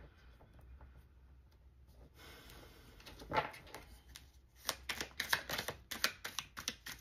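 A deck of tarot cards being handled and shuffled by hand: a soft sliding rustle, then a quick run of sharp card flicks in the second half.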